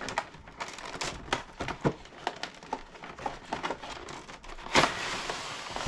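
Packaging being handled and opened by hand: irregular crinkling and crackling, with a louder, denser rustle about five seconds in.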